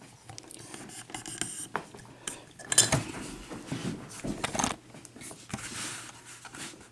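Lock-picking tools and a pin-tumbler cylinder lock being handled: light metallic clicks, taps and scrapes as the tension wrench and pick are set into the keyway.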